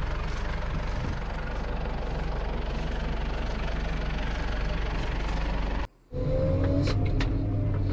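Excavator's diesel engine running steadily. About six seconds in it cuts off abruptly, and after a brief gap a different engine comes in with a rising whine.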